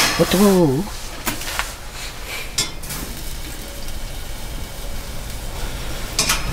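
Food sizzling as it fries in a pan, a steady hiss, with a few short clinks of a utensil stirring against the pan.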